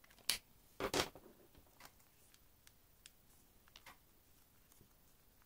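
Origami paper being folded and creased by hand: a few short crackles, loudest about a second in, then scattered faint ticks.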